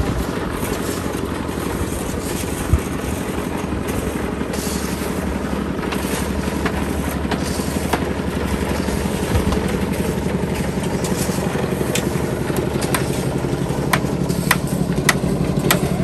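Engine of a portable drum concrete mixer running steadily. From about twelve seconds in, a string of sharp clicks and knocks rises over it.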